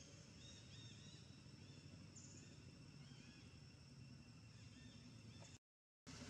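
Faint outdoor ambience: small birds chirping in short repeated notes over a steady high insect hum and a low rumble. The sound cuts out completely for about half a second near the end.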